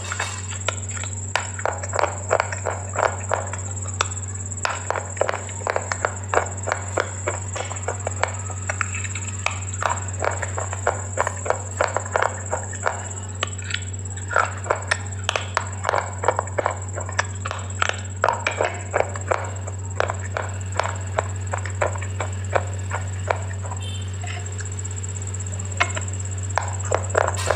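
Close-miked crunching and chewing of something hard and brittle: a fast, irregular run of sharp crunches all the way through. Under it runs a steady low hum and a faint constant high whine.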